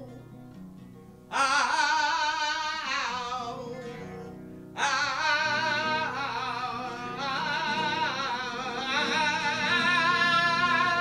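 Flamenco singing (cante) with long, wavering, ornamented notes over a flamenco guitar. A held note fades away at the start; a loud new phrase comes in about a second in, dies down, and another starts just before five seconds in.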